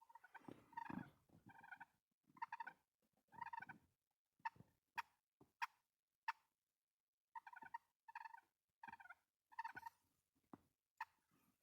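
Wild turkey gobblers gobbling, about nine short rattling gobbles one after another, with a run of four or five sharp short notes in the middle.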